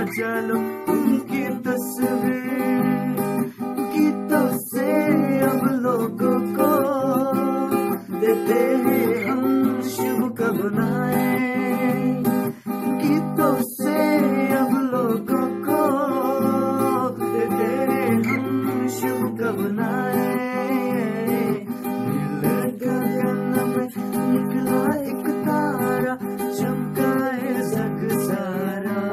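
Music: an instrumental passage with acoustic guitar strumming chords under a melodic lead line that glides and wavers in pitch.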